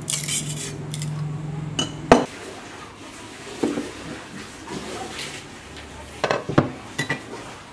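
Metal tool scraping and clinking against a cleaver's steel tang clamped in a bench vise, over a low hum that stops about two seconds in. A string of sharp knocks follows, the loudest just after the hum stops and a quick cluster of three near the end.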